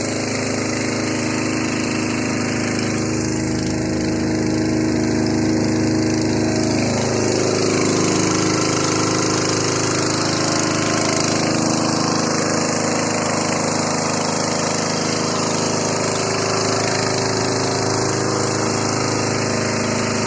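Motor boat engine running steadily, its pitch shifting slightly about a third of the way through.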